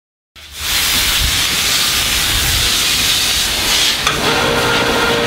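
Steady hiss of water spraying from a hose nozzle. About four seconds in there is a click, and a machine hum with steady tones joins the hiss.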